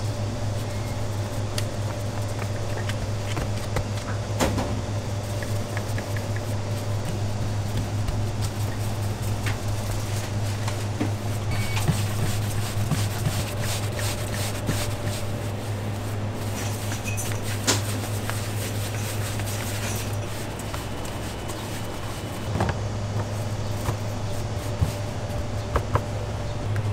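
Steady low hum of kitchen machinery, with scattered light knocks and clicks of food preparation.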